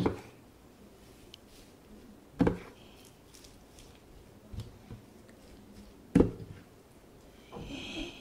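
Wooden spoon stirring rice and sauce in a stainless steel pan. It knocks sharply against the pan three times, a few seconds apart, with a softer knock between the second and third and quiet mixing sounds in between.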